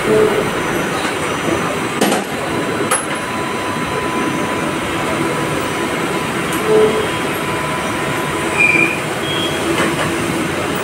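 Steady machine-shop noise: machinery running with a constant hum and a thin whine, with a few short beeps and two sharp clicks.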